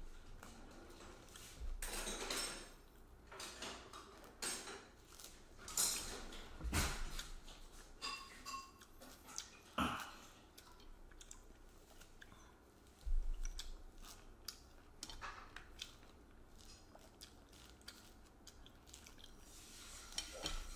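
Mandarin oranges being peeled by hand, the rind tearing and rustling, while people chew the segments, with irregular small clicks and knocks of plates and tableware.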